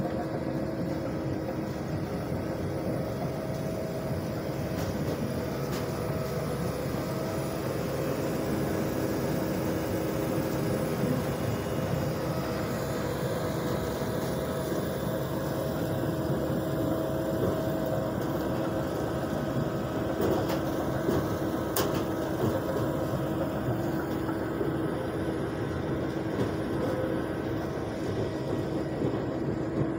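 Sugar beet cleaner-loader machinery running steadily: a constant heavy diesel engine drone with a steady hum.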